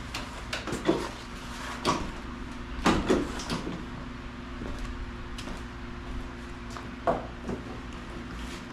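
A few sharp knocks and clunks, the loudest pair about three seconds in, from handling the mower and tools while setting up to drain its oil, over a steady low hum.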